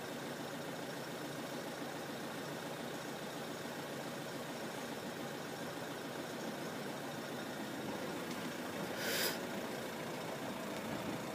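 Steady low engine rumble of idling vehicles, with a short sharp hiss about nine seconds in.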